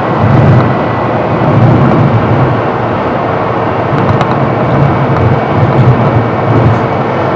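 Honda Civic's engine and road noise inside the cabin, with the engine settling to a steady cruise at about 2,000 rpm after a hard run near 6,300 rpm. A low rumble swells and fades several times.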